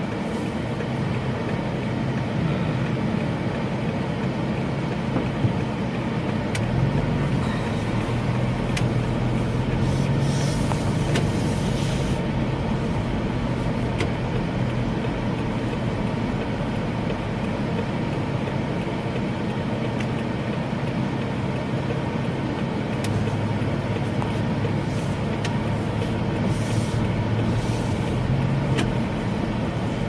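Car engine and road noise heard from inside the cabin while driving slowly, the engine note rising twice as the car speeds up. Two short hisses come about ten seconds in and again near the end.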